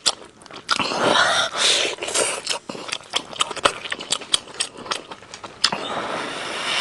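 Close-up eating sounds of someone chewing steamed chicken: many quick wet clicks and smacks of the mouth, with two longer noisy stretches of sucking or rustling, about a second in and near the end.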